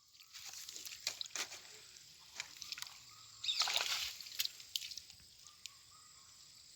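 Shallow water sloshing and dripping as someone wades and gropes for fish by hand, with scattered small splashes and a louder slosh about three and a half seconds in.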